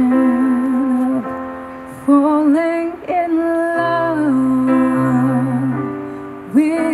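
Slow song with a woman singing long held notes over a soft accompaniment.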